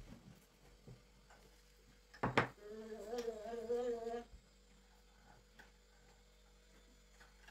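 A knock a little over two seconds in, then a person humming for about two seconds; faint light ticks follow.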